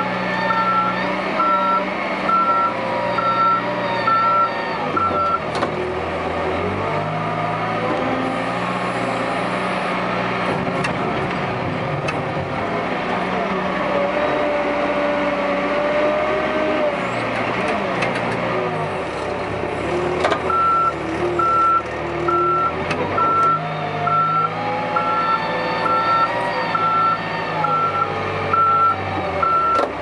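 Case 580 backhoe loader's diesel engine running and changing speed as the machine works, with a reversing alarm beeping about once a second for the first five seconds and again from about twenty seconds in.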